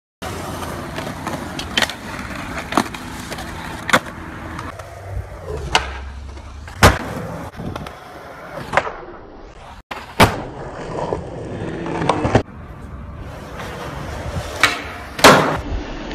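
Skateboard wheels rolling over pavement, broken by repeated sharp clacks of tricks being popped and landed. The loudest clack falls about a third of the way in. The rolling sound changes abruptly twice as one clip cuts to the next.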